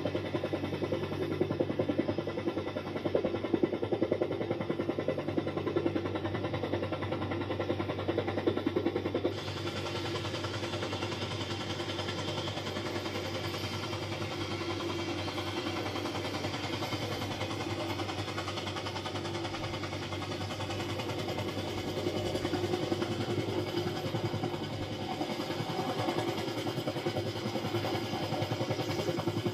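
AH-1 Cobra attack helicopter running with its rotor turning: a fast blade chop over a steady turbine hum. The sound changes abruptly about nine seconds in, where a different recording of the helicopter takes over.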